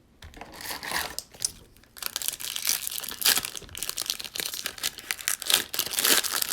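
Foil trading-card pack wrapper being torn open and crinkled by hand, a rough crackling that starts in a short burst and then runs almost without a break from about two seconds in.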